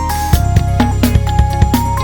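Upbeat background music with a steady drum beat, a bouncing bass line and short plucked melody notes.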